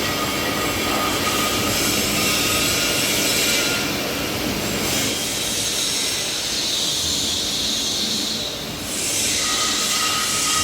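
CNC knife cutting machine running as it creases and cuts PP honeycomb board: a continuous mechanical hiss and whine, with a faint steady tone that comes and goes and a brief dip in level near the end.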